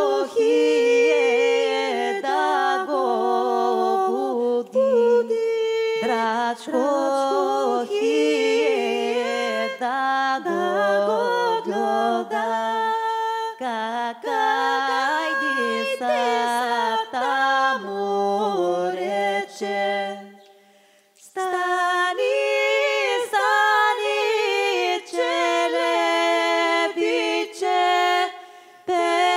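Several voices singing a Balkan folk song unaccompanied, in close harmony. The singing stops briefly about two-thirds of the way through, then resumes.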